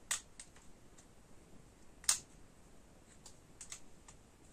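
Sharp plastic-and-metal clicks from an opened Aiwa PX477 cassette walkman as an AA battery is pushed into its battery compartment. Two louder clicks, one at the start and one about two seconds in, with fainter ticks between and near the end.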